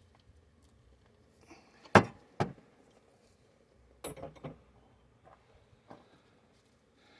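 Hard knocks and clatter from hand work on a truck: two sharp strikes about half a second apart, then a quicker run of clanks about two seconds later and a couple of lighter taps.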